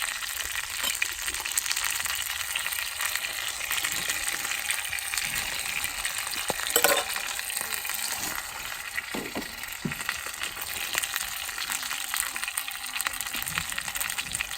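Gyoza sizzling steadily as they fry in oil in a pan, with one short clatter about seven seconds in.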